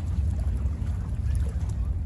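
Wind buffeting the microphone as an uneven low rumble, over choppy bay water lapping, with a few faint splashes.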